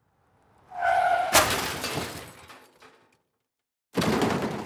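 Crash sound effect: a short rush builds into a sharp impact about a second and a half in, followed by shattering and breaking that fades over about a second and a half. A second crash with breaking starts near the end.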